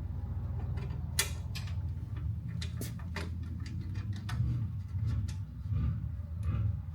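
A string of sharp, irregular clicks and ticks, about eight in all, from hands-on work on the truck's parts, over a steady low hum.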